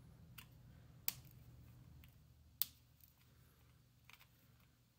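Flush cutters snipping the wire leads of through-hole capacitors on a circuit board: a few sharp snaps, the two loudest about one second and two and a half seconds in, with fainter clicks between.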